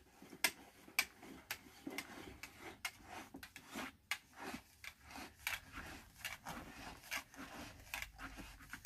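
Heavy plastic birdbath parts being twisted and fitted together: a run of irregular light clicks, knocks and scraping rubs as the bowl and column pieces are handled.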